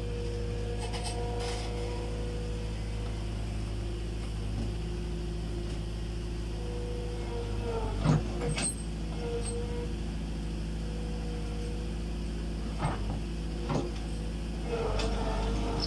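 Skid-steer loader engine running steadily, with a few sharp knocks, the loudest about eight seconds in.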